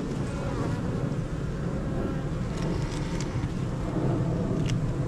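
Honey bees buzzing in a steady, dense hum around an open hive during a frame inspection, with a few brief sharp clicks in the second half.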